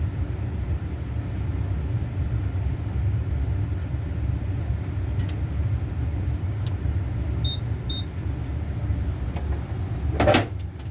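Steady low background rumble, with a few faint clicks and two short high beeps about half a second apart near the middle, then a brief louder sound near the end. The fire alarm itself is not sounding.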